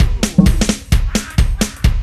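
Rock song with a driving drum-kit beat: steady kick and snare hits, the heaviest about twice a second, with lighter hits between.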